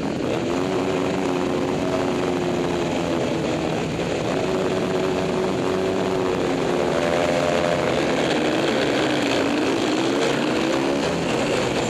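Husqvarna SM510R single-cylinder four-stroke supermoto engine heard onboard, accelerating hard, its note climbing and dropping several times as it revs up and shifts through the gears. Other supermoto engines in the pack run underneath it.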